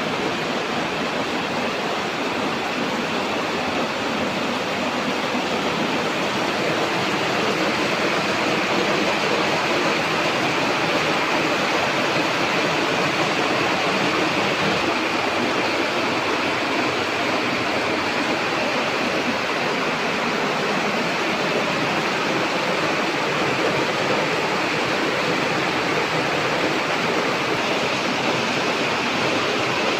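Rainwater rushing steadily, an even wash of water noise that grows a little louder a few seconds in.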